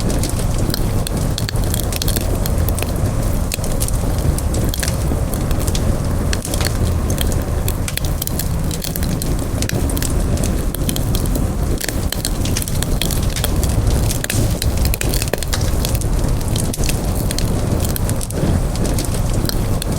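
Wood campfire burning and crackling, with frequent sharp pops and snaps over a steady low rumble of the flames.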